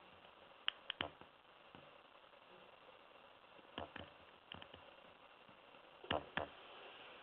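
Small sharp metallic clicks of a pick working the pins of a BYP dimple lock cylinder, coming in small clusters: a few about a second in, more near the middle, and two louder ones near the end.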